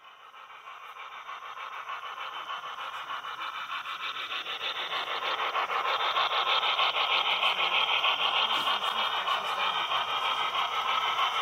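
HO-scale model of a Virginian steam locomotive pulling a freight train over a trestle, its rhythmic running sound growing steadily louder as it approaches.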